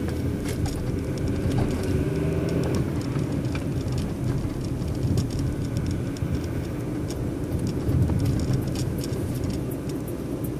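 Steady road and engine noise of a car driving on a wet street, heard from inside the cabin, with scattered sharp ticks.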